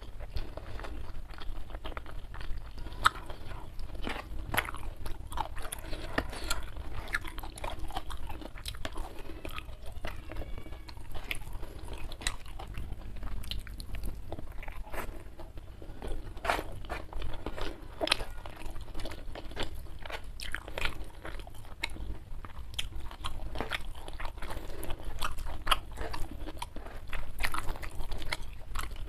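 Close-miked chewing and crunching of a mouthful of rice and side dishes eaten by hand, with many irregular sharp wet mouth clicks over a steady low hum.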